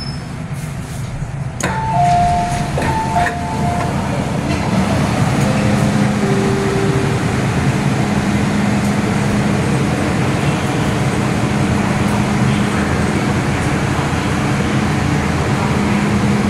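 MTR M-Train door-closing chime: short alternating two-tone beeps, followed by the train pulling out. Its traction motors give a few brief whines, then a steady low hum over a rumble that grows louder and holds.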